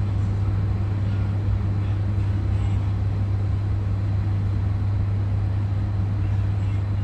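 Airliner cabin noise with the engines running: a steady low hum under an even rush of air noise.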